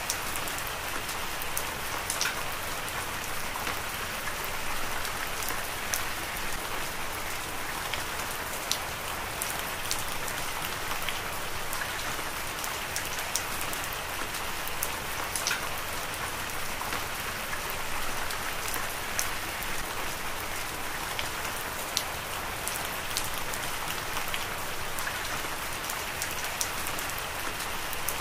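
Heavy rain falling steadily: a dense, even hiss of rain with many scattered sharp drop ticks.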